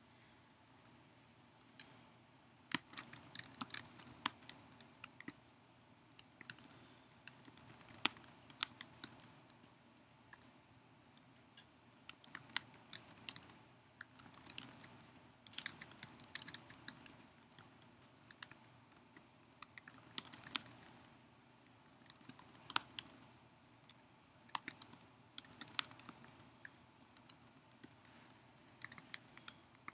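Typing on a computer keyboard: bursts of quick key clicks with short pauses between them.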